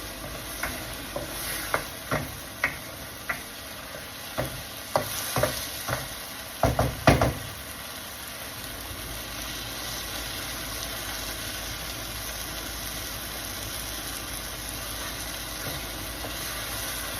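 Spatula stirring mushroom and tomato gravy in a frying pan, knocking and scraping against the metal, with the loudest clatter about seven seconds in; the stirring stops after about seven and a half seconds, leaving the gravy's steady sizzle in the oil.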